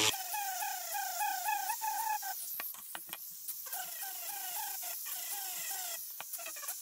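Flex-shaft rotary tool engraving lines into a wooden sword grip: a high whine whose pitch climbs and drops in a quick repeated pattern, about five times a second, as the bit cuts. The whine breaks off for about a second near the middle, where there are a few clicks, and briefly again near the end.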